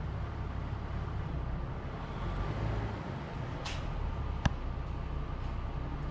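Vehicle engine idling with a steady low rumble, and a single sharp crack about four and a half seconds in.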